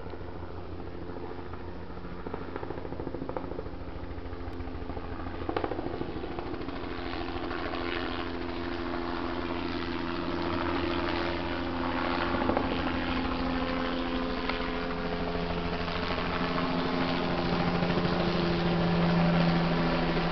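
Helicopter flying low overhead: rotor chop under a steady engine hum, growing louder as it approaches and loudest near the end.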